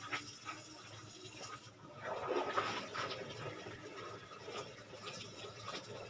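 A brush scrubbing a wooden gate, with liquid splashing; a busy run of short, quick strokes that gets louder about two seconds in.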